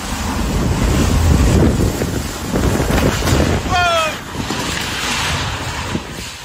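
Hurricane-force wind rushing and buffeting the microphone in gusts, loudest in the first two seconds. About four seconds in, a brief high tone falls slightly in pitch over half a second.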